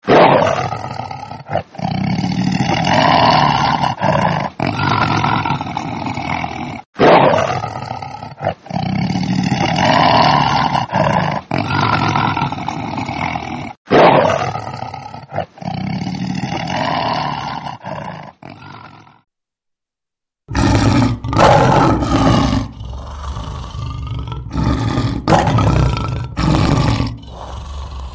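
Tiger roaring in long, loud calls, the same call repeating about every seven seconds. After a second of silence, a different big-cat roar follows in shorter breaths with brief breaks between them.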